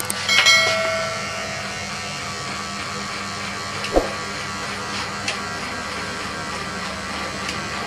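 Electric hair clipper buzzing steadily as it cuts short hair on the side of the head. A short chime-like sound effect comes about half a second in, and a brief falling blip about four seconds in.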